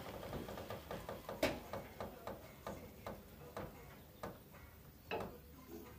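A run of sharp metallic clicks at a two-post car lift as it is worked, irregular at about two or three a second. A louder click comes about one and a half seconds in and another about five seconds in, then they die away.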